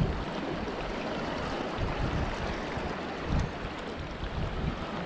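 Sea washing and lapping against shoreline rocks, with wind buffeting the microphone in uneven low gusts.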